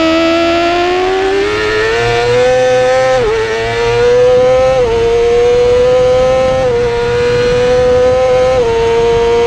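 2017 Yamaha YZF-R6's inline-four racing engine at high revs under full acceleration, its pitch climbing and then dipping briefly four times as it shifts up through the gears, with wind rushing past.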